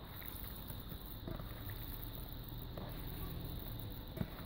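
Faint wet squelching of raw lamb cubes being kneaded by hand in a yoghurt and onion-juice marinade, over a low steady background hum, with a soft knock about four seconds in.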